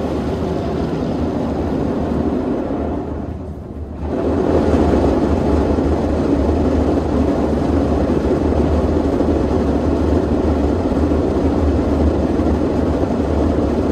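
Automatic tunnel car wash machinery running: a loud, steady rushing noise over a low rumble. It dips briefly, then comes back louder about four seconds in.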